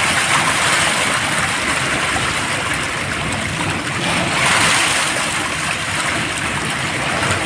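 Waterfall, water falling and rushing in a loud, steady noise that swells slightly a little over halfway through.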